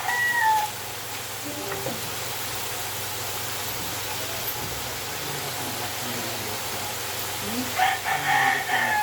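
The end of a rooster's crow at the start, then a cat meowing for about a second near the end, over a steady background hiss.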